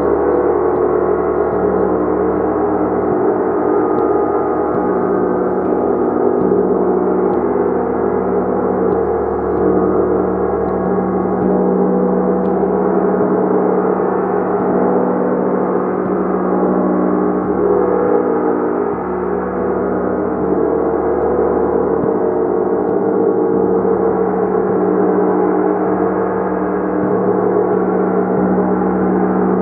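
A gong played continuously, giving a steady, dense wash of many overlapping ringing tones over a deep hum, with no single strike standing out.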